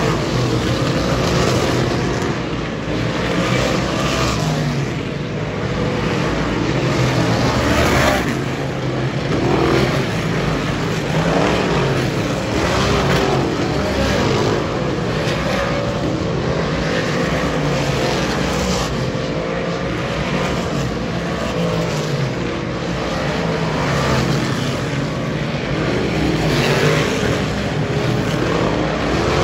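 Dirt modified race cars' V8 engines running laps on a dirt oval. The engine note rises and falls as the cars go around the track and pass by.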